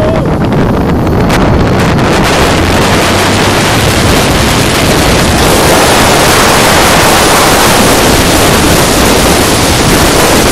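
Wind rushing over a phone microphone at an open window of a moving car: loud, steady rushing noise that covers everything else.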